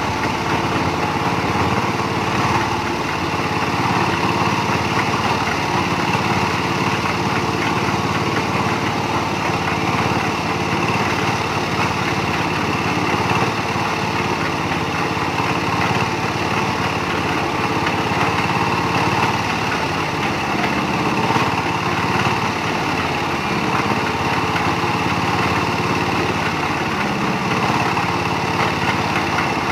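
Portable drum concrete mixer running steadily under test, its small engine holding a constant speed with no change in pitch.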